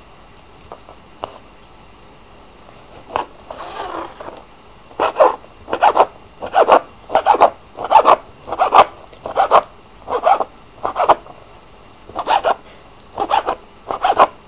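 Kitchen knife chopping cooked ham on a plastic cutting board: a few light taps and a short scrape, then from about five seconds in a steady run of chops, roughly two a second, with a brief pause near the end.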